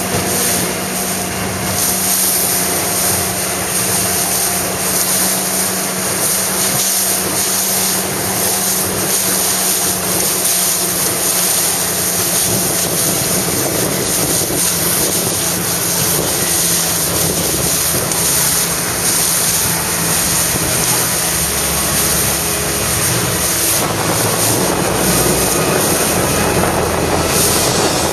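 Steady rush of wind on the microphone and water noise from an RS 800 sailing dinghy under way, with a faint low hum beneath.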